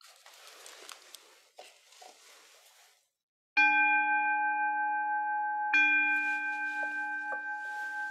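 Buddhist bowl bell (kin) struck twice, about two seconds apart, each strike ringing on with a steady, slowly fading tone. It signals the start of the chant. Faint rustling and small clicks come before the first strike.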